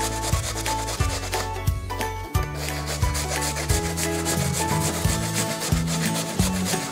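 Raw potato being grated on a hand grater: repeated rasping strokes. Background music with a bass line plays under it.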